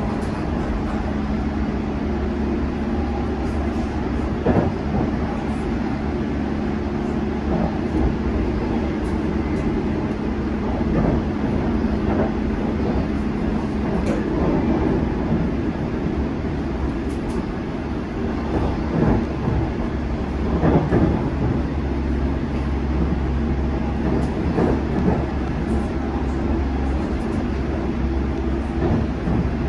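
Inside a London Underground Metropolitan line S8 Stock train running at speed: a steady low rumble with a hum underneath, and now and then a knock from the running gear.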